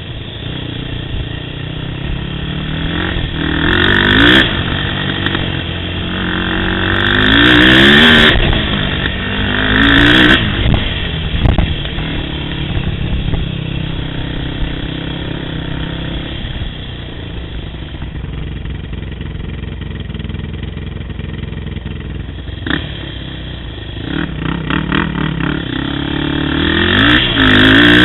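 Yamaha YFZ450 sport ATV engine pulling hard on the trail, revving up in rising bursts four times with steadier, lower running between.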